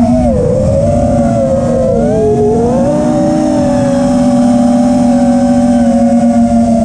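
Brushless motors and propellers of a 6S FPV racing quadcopter (T-Motor Velox V2 2207 1750 kV motors) whining at a fairly steady cruise throttle. The pitch wavers and dips about two seconds in, then climbs back and holds.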